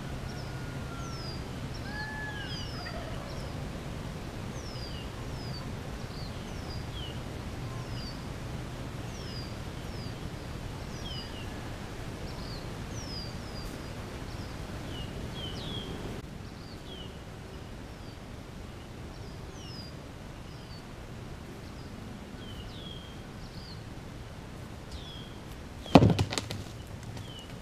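Small birds chirping over and over. About 26 seconds in comes one sharp, loud thwack of an arrow striking a wild turkey, followed by a short flurry as the bird leaps and flaps.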